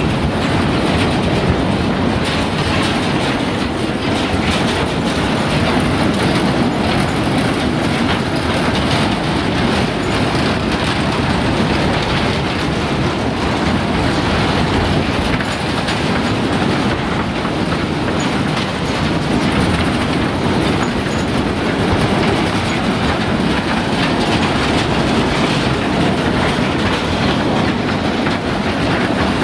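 Loaded peat wagons of a narrow-gauge field railway rolling past, their steel wheels running on the track with a steady, continuous rolling noise.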